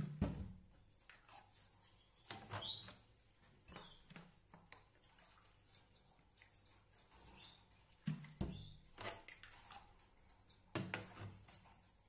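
Plastic bird drinkers and their clip-on spout caps being handled and set into a plastic carrier tray: scattered clicks and knocks, the loudest at the very start, around eight seconds in and near the end. A few faint, short canary chirps come between them.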